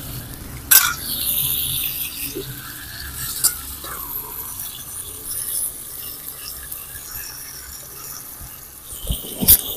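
Food frying in a wok on a wood-fired clay stove, stirred with a metal spatula, then a steel lid clinks down onto the wok. A few loud knocks near the end.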